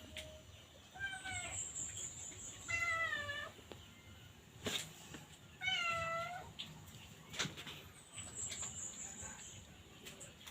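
A cat meowing three times, each call a short bending cry, with a couple of sharp clicks between them.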